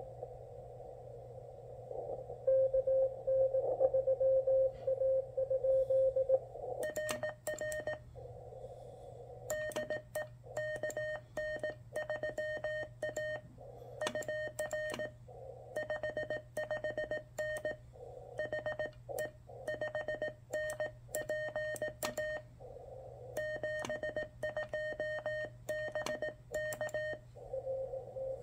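Venus SW-3C QRP transceiver on CW: over receiver hiss, a received station's Morse code tone, then a long stretch of the operator's own Morse sending as a slightly higher sidetone with sharp clicks, the band hiss dropping out while transmitting and coming back near the end.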